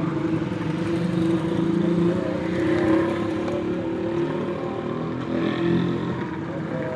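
Motor vehicle engines running steadily with a low hum.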